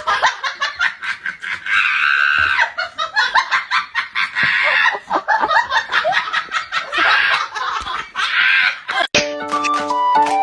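Hearty human laughter in rapid repeated bursts, with music under it. About nine seconds in, it cuts off suddenly to music with steady held notes.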